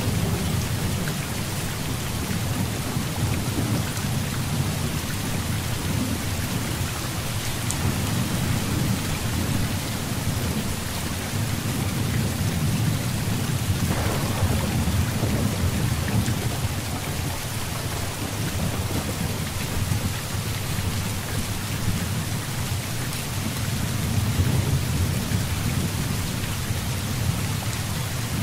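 Heavy rain falling steadily, with low rolling thunder rumbling underneath and swelling and easing in waves.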